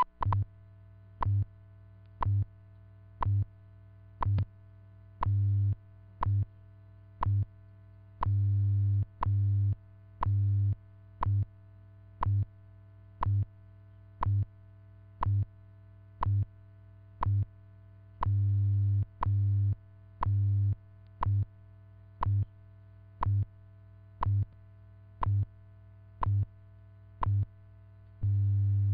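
WWV time-signal broadcast: a short tick every second over low 100 Hz pulses of differing lengths, the station's time code.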